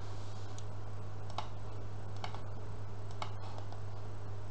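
A few separate key presses on a computer keyboard, about one a second, as a value is typed in, over a steady low electrical hum.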